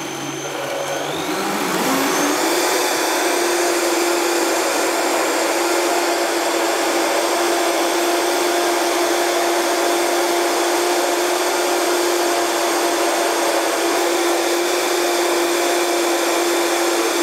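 High-powered countertop blender running, its motor speeding up over the first two seconds or so and then holding a steady high whine as it blends blueberries and soaked cashews into a thick cream.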